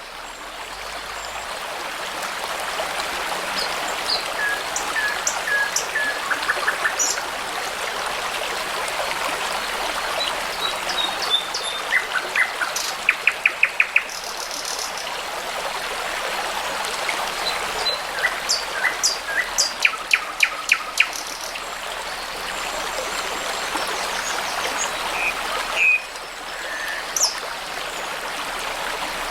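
Steady babble of a small brook, with songbirds singing over it in short phrases, among them several fast runs of repeated notes.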